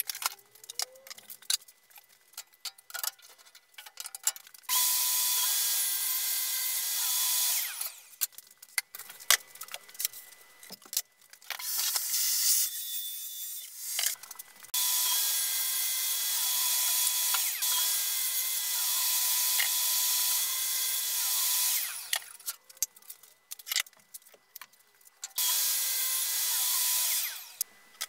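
Plunge track saw running along its guide rail and cutting plywood sheet: four cuts, the longest about seven seconds, each with a steady motor whine under the cutting noise. Between cuts, clicks and knocks of the saw, rail and boards being handled.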